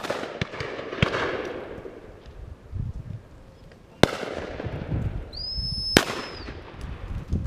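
Shotgun shots: three loud reports, one at the start, one about four seconds in and one about six seconds in, plus a fainter shot about a second in, each followed by a rolling echo. A steady, high whistle sounds for about a second just before the last shot.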